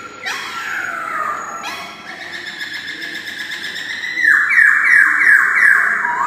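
Black-throated laughingthrush singing: falling whistled notes in the first two seconds, then from about four seconds a loud, fast run of repeated whistles, about four a second.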